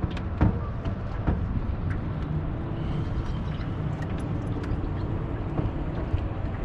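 Motorboat engine running with a steady low hum. Scattered light clicks and knocks sound over it, the loudest about half a second in.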